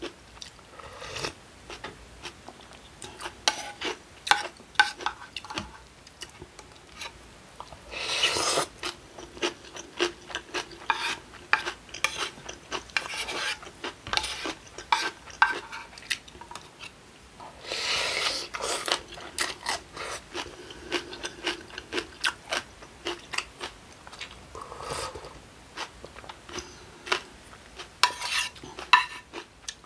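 Cutlery clinking and scraping against a bowl of acorn jelly in slushy iced broth as it is stirred, many small clicks, with two denser scraping stretches about eight seconds in and again around eighteen seconds.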